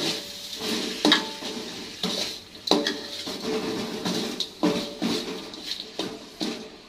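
Metal spatula clanking and scraping against a wok while stir-frying tofu, with irregular strikes that ring briefly over a light sizzle of frying.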